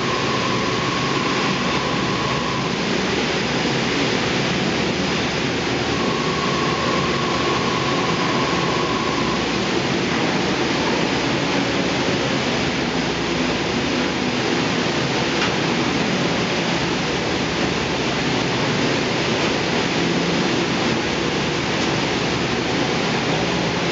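Steady, loud hissing roar of an oxygen-fed thermal lance (burning bar) burning through the slag tap hole of a copper converter, mixed with smelter noise. A steady high tone sounds twice, each for about three seconds, in the first ten seconds.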